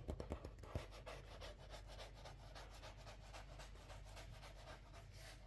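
Fingers rubbing and scratching on a sheet of drawing paper, faint quick even strokes, with a few sharper taps in the first second.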